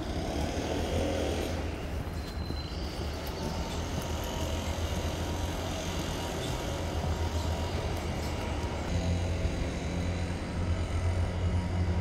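Steady city street traffic noise, a low rumble with a hiss, from cars on a rain-wet road.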